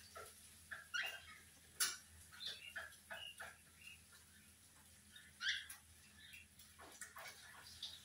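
Cockatiels giving short chirps and sharp squawks in scattered bursts as they squabble over a perch, the loudest calls about two seconds in and midway through.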